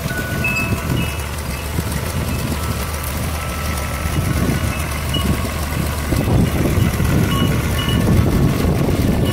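Long 350 tractor's diesel engine running steadily under load, driving a rear rotary tiller through garden soil. It grows louder over the last few seconds.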